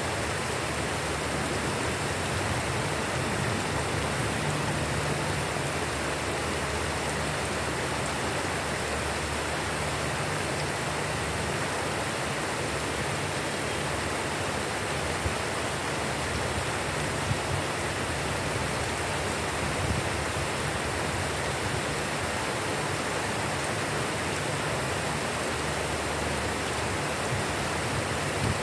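Steady rain falling, an even hiss, with a few brief louder ticks of drops.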